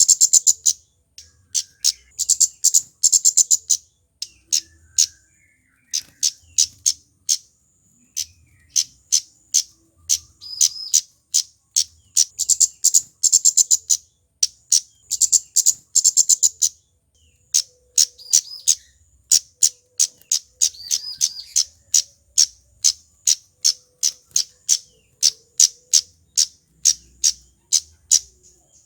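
Male flowerpecker (kemade) calling in rapid runs of sharp, high-pitched ticking 'cit' notes, several a second, in clusters with short pauses between them.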